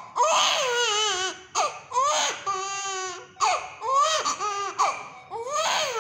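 An infant with a high-grade fever crying hard: a string of loud wails, each about a second long, rising then falling in pitch, with short breaks for breath between them.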